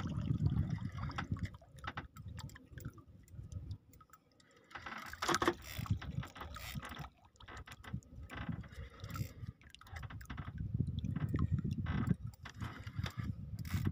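Large spinning reel cranked under heavy load against a big fish, giving a run of clicks and knocks from the reel, with water lapping at the boat. A louder clatter comes about five seconds in.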